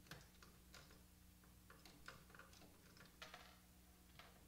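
Faint, irregular small metal clicks, a few a second, from a screwdriver turning out the screws that hold the fuser in an HP LaserJet M525 printer.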